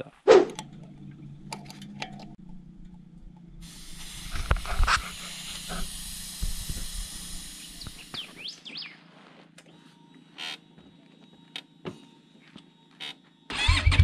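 Motorcycle engine idling with a steady low hum. For a few seconds in the middle a rush of noise rises over it, with a few short high chirps near its end. Scattered light clicks follow.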